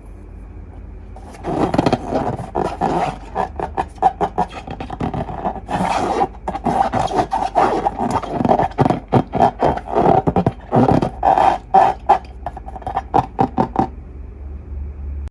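Hands squishing and kneading glossy slime: a quick, irregular run of sticky clicks and pops. It starts about a second and a half in and stops near the end.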